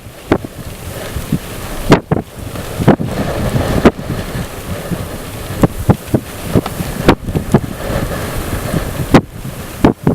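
Strong storm wind in a hailstorm, a continuous rush with gusts buffeting the microphone in many sudden loud thumps.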